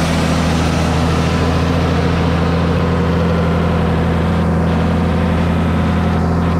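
Valtra T151's 6.6-litre six-cylinder diesel engine running at a steady speed, a constant deep hum with no change in pitch.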